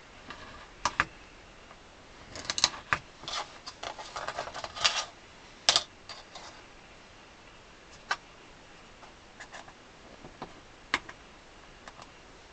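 A thin celluloid sheet being cut along a pencil line: a run of crisp clicks and crackling a couple of seconds in, one sharp loud click around the middle, then a few scattered clicks and taps.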